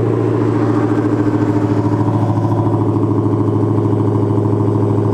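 Dodge Challenger SRT Hellcat's supercharged 6.2-litre Hemi V8 idling steadily, heard at the exhaust tip through the stock exhaust with its mid-mufflers still in place.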